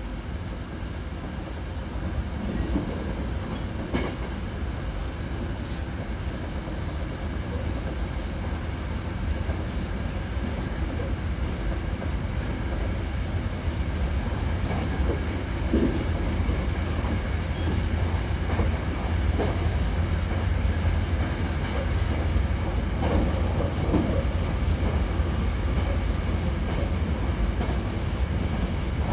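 Hankyu Kyoto Line electric train running between stations, heard from inside the car by the doors: a steady low rumble that grows louder over the run, with a few short clicks.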